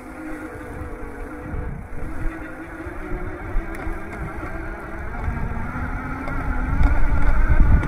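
Electric bike accelerating under throttle: a steady whine from the hub motor and fat tyres, with wind rumble on the microphone growing much louder over the last few seconds as speed builds.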